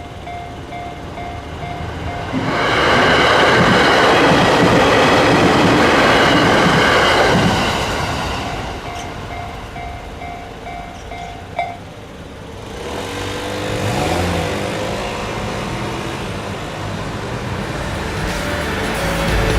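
Japanese railway level-crossing alarm ringing its electronic kan-kan bell at about two strikes a second, drowned out for about five seconds by a Hachiko Line train passing loudly over the crossing. The bell rings on after the train and stops with a click about twelve seconds in.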